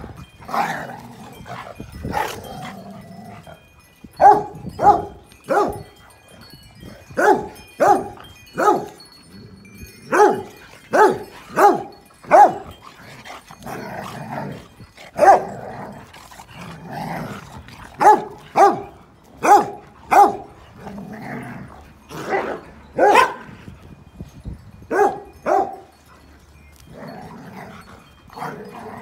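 An English bulldog and standard schnauzers play-fighting: about twenty short, sharp barks, often in quick runs of three or four, with low growling in the pauses between them.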